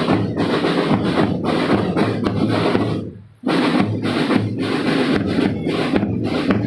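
Marching drum band playing: snare drums and bass drums in a steady driving pattern. The sound fades out briefly about three seconds in, then comes back suddenly.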